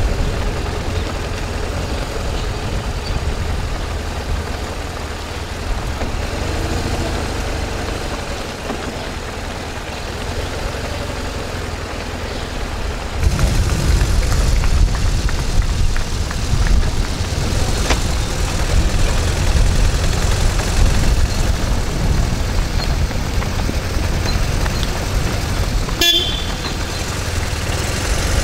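Steady low rumble of outdoor noise that grows louder about halfway through, with a short, high-pitched toot near the end.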